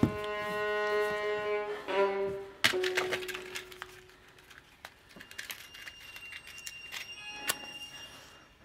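Eerie bowed-string music. A sustained string note with many overtones starts suddenly and is struck again about two seconds in, then a sharp scrape and a fading low note. Sparse scratchy clicks and a thin high tone follow, with one sharp crack near the end.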